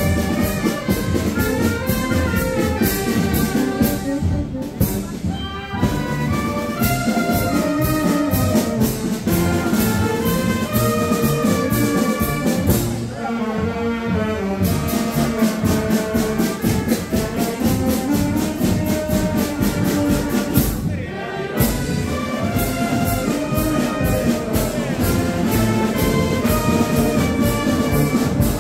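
Brass band playing a processional march over a drum beat, with short breaks between phrases about five, thirteen and twenty-one seconds in.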